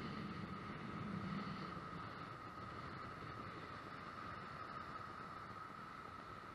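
Storm surf breaking along the shore and wind, heard as a steady, muffled wash with a steady high whine running through it; a deeper rumble fades out about two seconds in.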